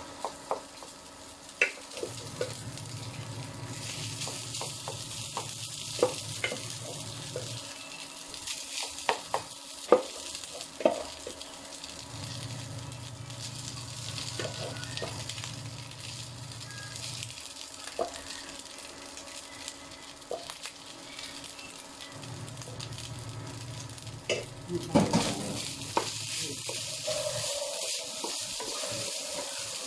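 Fried rice (sinangag) sizzling in a pan while it is stirred and tossed, with a utensil clicking and knocking against the pan many times. A low hum comes and goes three times.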